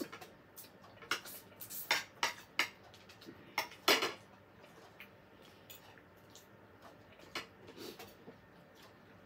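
Metal fork clinking and scraping against a plate while eating, a scatter of sharp clicks that come thickest in the first four seconds and thin out after.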